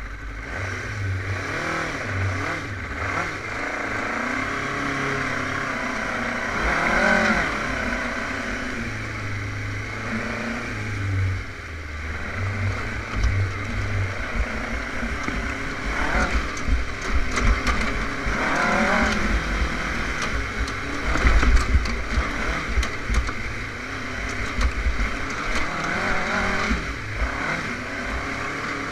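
A dune buggy's engine revving up and down in repeated rising and falling sweeps as it drives. In the second half, a run of low thuds and rattles comes from the buggy jolting over rough ground.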